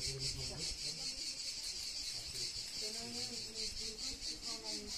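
Insects chirring in a loud chorus, a high, rapid, evenly pulsing drone that does not let up.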